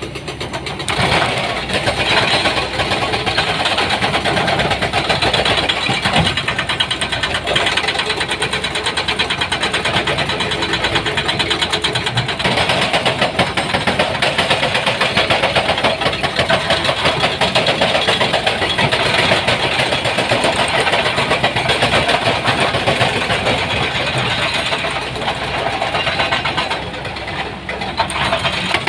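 Excavator's diesel engine working hard, with a fast, even pulsing. It picks up about a second in and eases off near the end.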